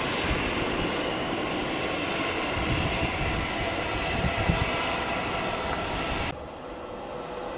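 Jet engines of an Airbus A320-200 at taxi power as the airliner taxis: a steady whine over a rumble, with wind buffeting the microphone. The sound drops off suddenly about six seconds in.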